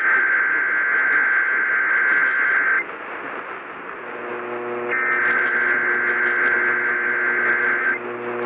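Emergency Alert System SAME header data tones received over AM radio: two bursts of warbling digital tones, about three seconds each with a gap between, over steady radio static. A low buzz comes in about halfway through and continues.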